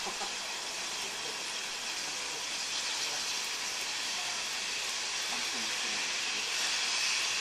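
Steam locomotive approaching with its cylinder drain cocks open: a steady hiss of escaping steam that grows gradually louder.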